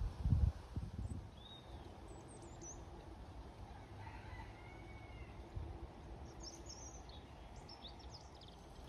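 Faint outdoor garden ambience with birds calling now and then. A few low bumps of wind on the microphone come in the first second.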